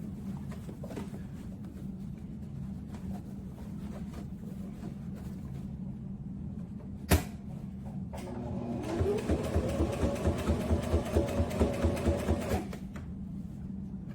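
Brother XM2701S electric sewing machine: a sharp click, then the motor spins up with a rising whine and the needle mechanism runs for about four seconds in a fast, even stitching rhythm before stopping.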